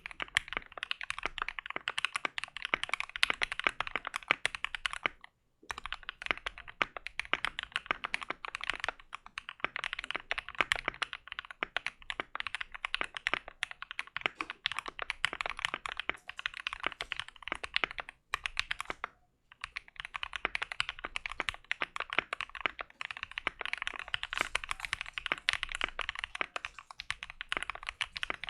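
Fast typing on a Keychron Q2 aluminium mechanical keyboard: a dense run of keystrokes, pausing briefly twice, about a fifth of the way in and about two-thirds of the way in.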